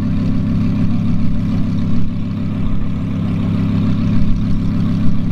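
A car engine idling steadily with a low, even hum.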